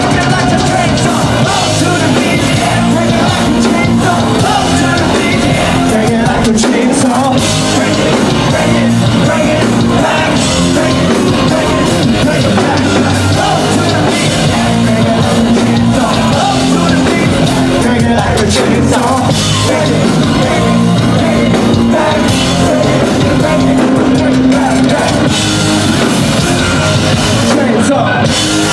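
Live rock band playing loudly, with drum kit, bass and singing, heard from within a concert crowd.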